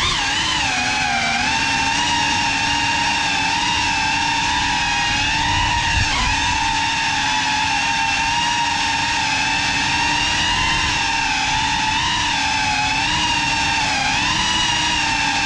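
Brushless motors and ducted propellers of a GEPRC Cinelog 35 FPV cinewhoop drone in flight: a steady high whine whose pitch wavers slightly up and down with the throttle.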